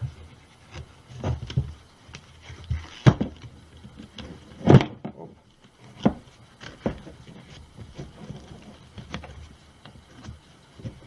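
Handling noises: scattered knocks and rubbing as a cloth buffing bonnet is stretched over the rubber backing pad on a drill, with two sharper knocks about three and five seconds in.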